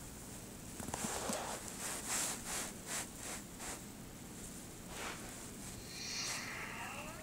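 Handling noise: a run of short rubbing and scratching sounds, with a faint electronic tone near the end.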